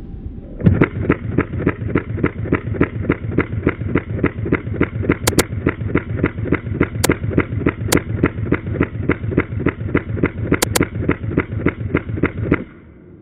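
Steady pulsing backing track, about four to five beats a second, which starts and stops abruptly. A few sharp clicks sound over it near the middle.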